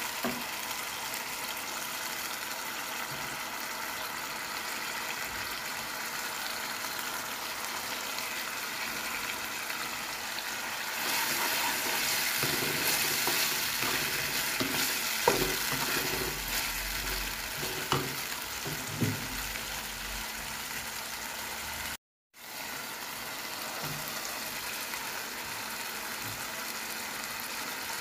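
Onions and chili sauce sizzling steadily in a wok. About halfway through the sizzle gets louder as chopped chili and green onion are stirred in with a spatula, which knocks against the wok a few times.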